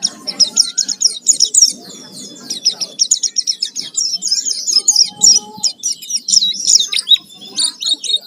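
White-eye (pleci) singing hard: a fast, unbroken run of high chirps, twitters and trills in a varied 'full isian' song.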